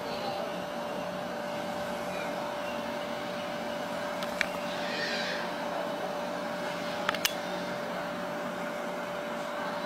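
Steady hiss with a constant hum, broken by a sharp click about halfway through and two quick clicks a few seconds later.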